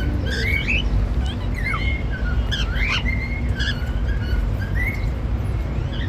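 Cockatiels chirping and whistling in a string of short calls that swoop up and down, over a steady low hum.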